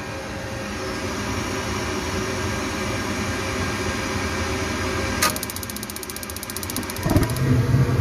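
Gas furnace starting up: the draft inducer fan runs steadily. About five seconds in, the spark igniter ticks rapidly, about a dozen clicks a second, for about two seconds. Near the end the propane burners light with a low whoosh, and the flame's rumble carries on louder.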